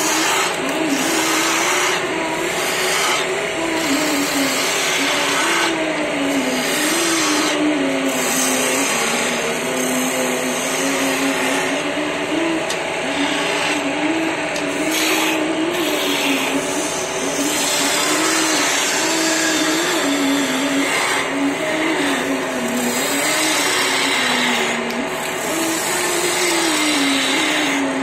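Wood lathe running while a hand-held gouge cuts a spinning wooden blank: a motor hum that slowly rises and falls in pitch under the rough hiss of the cut, which swells and fades as the tool is worked along the piece.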